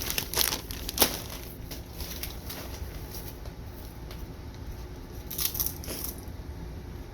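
Crinkly foil chip bag being torn open and rustled, in bursts of crackling with a sharp snap about a second in and more crinkling near the end.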